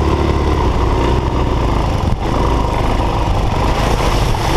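Single-cylinder enduro motorcycle engine running steadily as the bike rides over gravel, picked up by a helmet-mounted camera.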